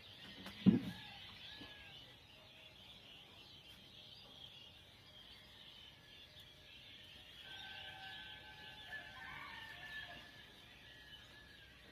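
Dawn bird chorus, a steady high chatter of many small birds, with a rooster crowing from afar about halfway through. A single sharp thump sounds near the start.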